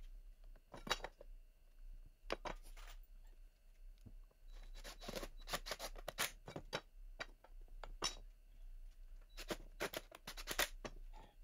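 Faint bursts of rapid clicking and rattling from a cordless driver sinking pocket-hole screws into pine 2x4s. There are two longer runs, one about halfway through and one near the end.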